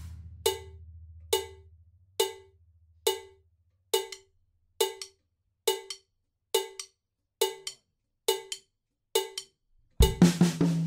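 Metronome click track at 69 bpm: a short click sounding alone about every 0.9 seconds, while the ring of the drums dies away. Near the end the drum kit comes back in with snare, bass drum and cymbals.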